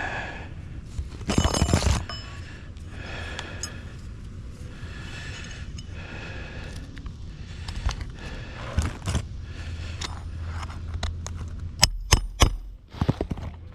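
Roof repair work on asphalt three-tab shingles: shingles scraping and rustling as they are handled, with scattered clicks, a loud scraping burst about a second and a half in, and a quick run of sharp knocks near the end as nails are driven in.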